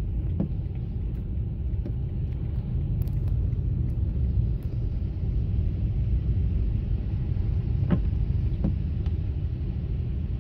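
Steady low rumble of a car driving on a wet road in heavy rain, heard from inside the cabin, with a fainter hiss of rain over it. A couple of light ticks come about eight seconds in.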